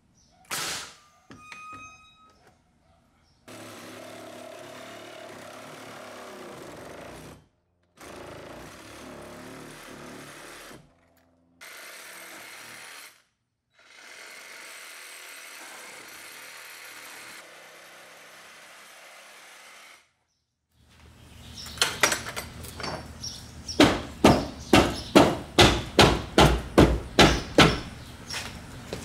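A pneumatic framing nailer fires once with a sharp crack and a short ringing, followed by steady background hiss. Near the end comes a fast run of about a dozen loud, sharp blows at roughly three a second.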